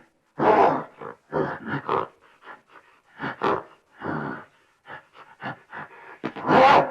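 An angry animal grunting and growling in a series of short, harsh bursts, the longest and loudest one near the end.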